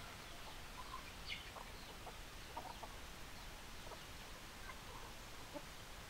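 Chickens clucking, a scattering of short calls from the flock at irregular intervals over a steady background hiss.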